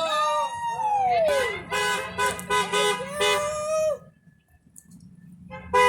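Car horns honking in a string of short and longer toots as the parade cars pass, mixed with shouted calls. The honking stops about four seconds in, and one more horn blast sounds near the end.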